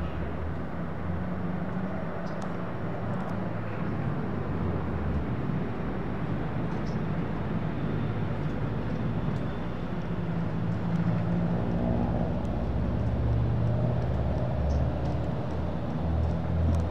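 Low, steady vehicle rumble with a hum in it, growing louder in the second half.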